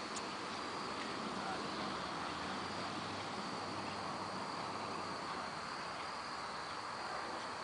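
Crickets chirping in a steady chorus: one continuous high trill that holds unchanged throughout.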